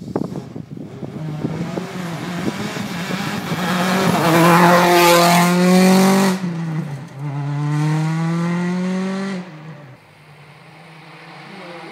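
Mini John Cooper Works WRC rally car's turbocharged four-cylinder engine at full throttle, loudest as it passes, its pitch climbing through each gear. There is an upshift about six seconds in, another climb, and then the sound drops sharply near the end, leaving a fainter engine note in the distance.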